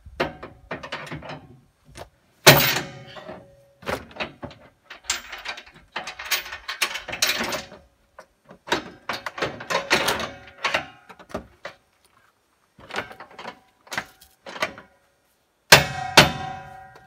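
Steel chain and spring bars of a trailer weight-distribution hitch clanking and rattling as the chain is set on its bracket, with loud ringing metal clanks about two and a half seconds in and near the end.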